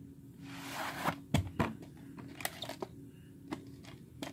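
A VHS cassette being slid out of its cardboard sleeve and handled: a short rustle, then several light plastic clicks and taps.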